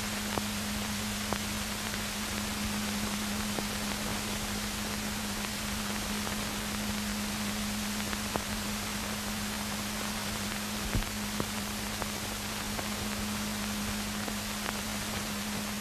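Steady hiss with a constant low hum and a few faint scattered clicks: the background noise of an old film soundtrack, with no other sound standing out.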